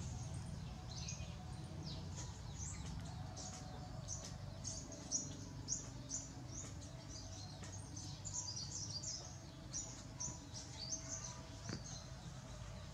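Small birds chirping: many short, high-pitched chirps in quick irregular runs, over a steady low hum.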